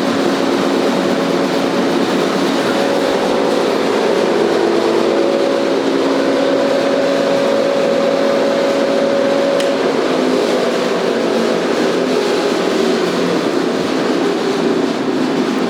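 Staiger H15-30 horizontal grinder and its conveyor running steadily, driven by a 30 hp electric motor, with the conveyor in reverse: an even mechanical hum with several steady tones.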